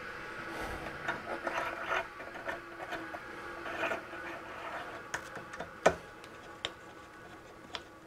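Small metal parts being handled: a scattered run of light clicks and taps as a set screw and drill bit are fitted into a hole saw arbor, with one sharper click a little before six seconds in. A faint steady hum runs underneath.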